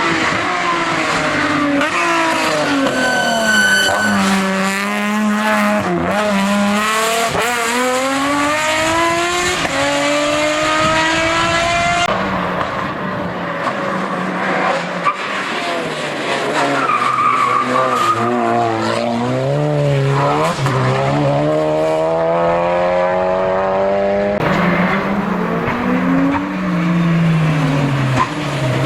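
Hill-climb race cars at full throttle, engines revving up through the gears, with the pitch dropping sharply at each shift and on braking. The sound changes abruptly twice, as one car gives way to another.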